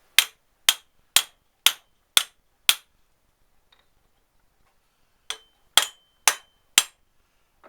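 Hammer blows on a fitting tool driving a bearing into a Citroën 2CV driveshaft output hub housing: six even strikes about half a second apart, a pause, then four more, the last few ringing as the bearing goes home.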